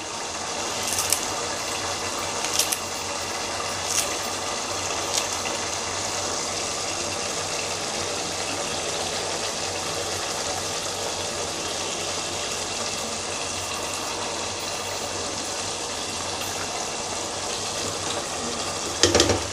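Thick cucumber and tomato curry simmering in a pan with a steady bubbling sizzle, with a few light clicks in the first five seconds. A spatula starts stirring it near the end.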